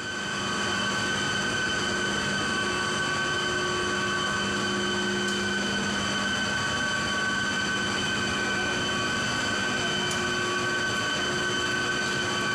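Steady machinery drone of a cooling-tower plant, a continuous hum with several fixed high whining tones over it and no rhythm or change.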